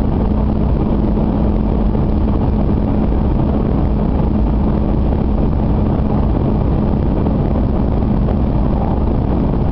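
Series 800 Shinkansen train running at speed, heard from inside the passenger car: a steady, loud rumble of wheels and rushing air with a steady low hum through it.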